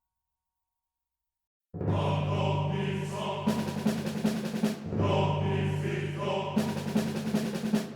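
Silence, then about two seconds in dramatic background music starts abruptly: deep sustained orchestral chords with choir and timpani, swelling in two phrases.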